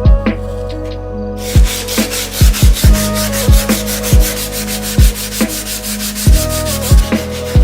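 Sanding during the restoration of a butter churn, in rapid, even back-and-forth strokes, about eight a second, that start about a second and a half in. Background music with a steady drum beat runs throughout, and the beat is the loudest sound.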